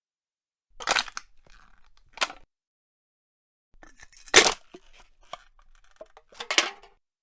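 Aluminium soda can being crushed: four bursts of metal crumpling and crunching, the loudest and longest a little past the middle, with dead silence between them.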